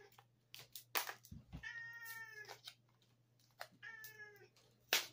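A domestic cat meowing twice, each a drawn-out meow of about a second. Between and around the meows come sharp clicks from a plastic battery blister pack being picked open, loudest about a second in and near the end.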